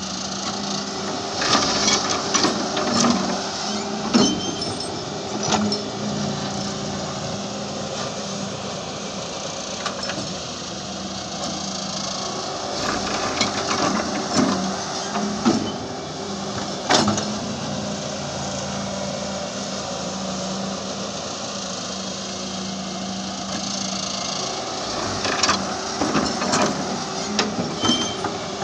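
Wheeled excavator's diesel engine running steadily under hydraulic load while it digs and loads soil. Repeated clanks, scrapes and rushes of dirt come in clusters as the steel bucket bites into the pile and dumps into a trolley.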